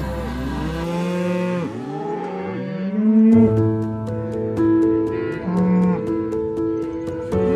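Several moo-like bovine calls, low lowing in quick succession, over background music. From about three seconds in the music carries on with held notes and a light ticking beat, and one more call comes later.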